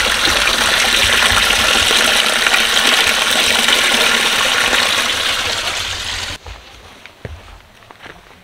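A loud, steady rushing hiss that cuts off suddenly about six seconds in, leaving a much quieter stretch with a few faint clicks.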